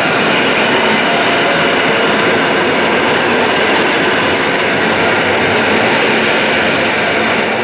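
Koleje Mazowieckie EN57AKM electric multiple unit running past along the platform: a loud, steady rumble of wheels on rail with a faint steady whine.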